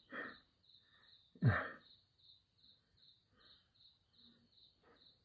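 An insect chirping steadily on a high pitch, about four chirps a second. Over it, a man lets out two breathy sighs, one at the very start and a louder one with falling pitch about a second and a half in.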